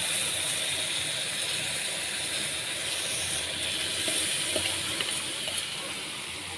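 Milk with vermicelli poured onto hot caramel in a nonstick frying pan, hissing and bubbling as it boils up, easing off slowly toward the end.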